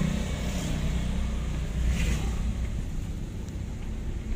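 Car engine and road noise heard from inside the cabin while driving, a steady low rumble. A motorcycle's engine hum passes close alongside at the start and fades.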